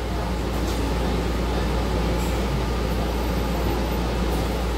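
City bus heard from inside the passenger cabin: a steady low rumble of engine and road noise, with a couple of faint ticks.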